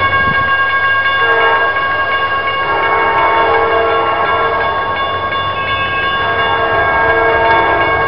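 CSX freight locomotive's air horn sounding, several notes held together, with its lower note dropping out and returning several times, over the rumble of an approaching double-stack intermodal train.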